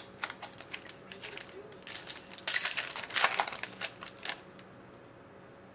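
Crinkling and crackling of a trading card pack wrapper being torn open and cards being handled, a run of quick rustles that grows loudest about halfway through and stops about a second before the end.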